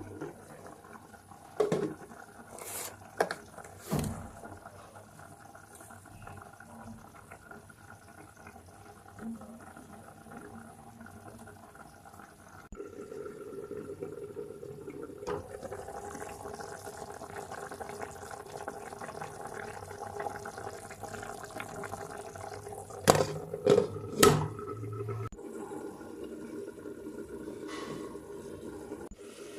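Water running steadily into a pot or sink, growing louder partway through, with a few sharp knocks and clinks of cookware, a cluster of three loud ones near the end.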